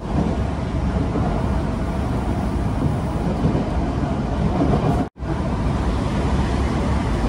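Electric commuter train running at speed, heard from inside the carriage: a steady low rumble that cuts out for an instant about five seconds in.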